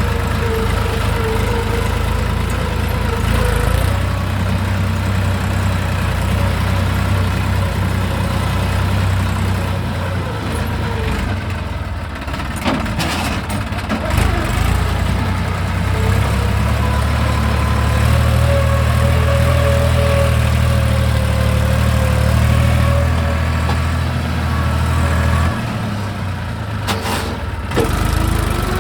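Tractor's diesel engine running steadily, with a few short clatters along the way.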